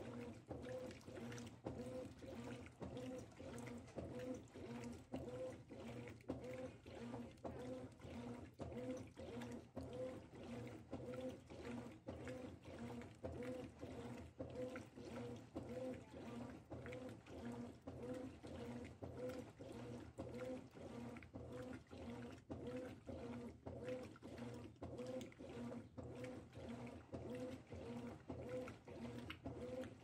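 Consul CWE13AB 13 kg top-load washing machine agitating a soaked queen-size duvet on its duvet cycle. The motor hums with each back-and-forth stroke, roughly once a second, over the swish of churning water.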